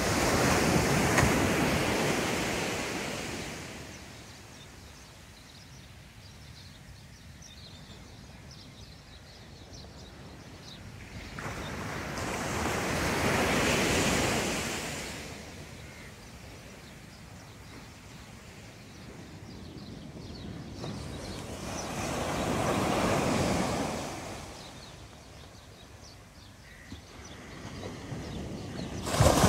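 Small sea waves breaking and washing up a sandy shore: three swells of surf, about ten seconds apart, each rising and fading over a few seconds, over a low steady wash.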